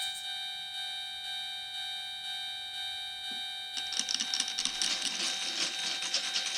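A steady electronic warning tone, most likely the toy Japanese railroad crossing's signal, holds on and slowly fades. About four seconds in, marbles start rolling and clattering quickly along wooden and plastic track.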